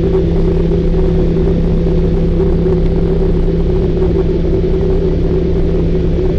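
Propeller jump plane's engine drone and wind rushing past the open door, heard from inside the cabin: a loud, steady hum with a constant low rumble.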